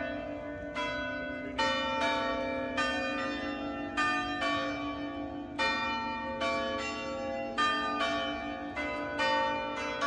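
Clock chime bells playing a melody: struck bell notes ring out one after another, about one or two a second, each fading slowly, over a steady low tone.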